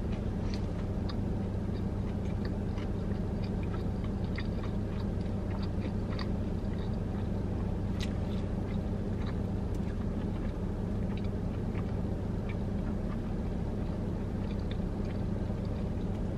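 Close-up mouth sounds of a person chewing a crispy fried chicken sandwich, with scattered small wet clicks and smacks. Underneath runs a steady low hum in the car.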